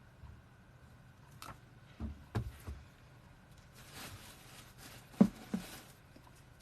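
Books being handled: a few knocks and taps, then about two seconds of rustling with a sharp tap in the middle.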